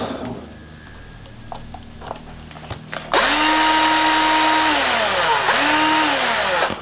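Small cordless power screwdriver running about three seconds in, loud and steady for a few seconds, its motor whine sliding down as it slows, then speeding up again briefly before it stops, with light clicks of small parts being handled before it starts.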